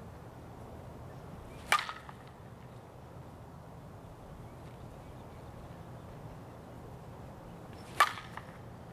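Softball bat hitting a pitched ball twice, about six seconds apart. Each hit is a sharp crack followed by a brief ringing.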